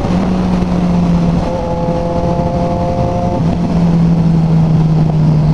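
Motorcycle engine running under way through an exhaust whose muffler tip has been removed, leaving only the open pipe, with wind rushing past. The engine note holds steady, dips a little after about three seconds, then slowly sinks as the bike eases off.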